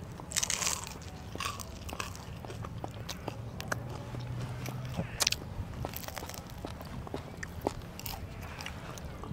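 Close-up eating sounds: a juicy bite into fresh watermelon about half a second in, then chewing with scattered wet mouth clicks.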